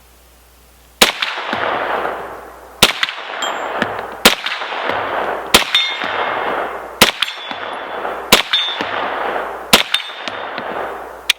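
Kel-Tec Sub-2000 9mm carbine firing eight slow, aimed shots, about one every one and a half seconds. Each sharp crack is followed by a ringing tail that dies away over about a second.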